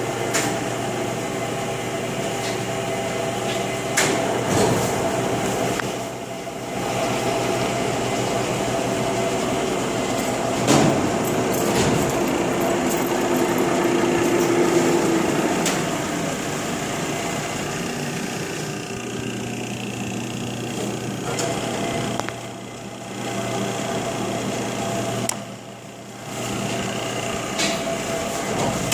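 LeBlond Regal engine lathe running, its 20 HP drive and gearing giving a steady mechanical hum made of several steady tones, with scattered clicks and a few brief dips in level.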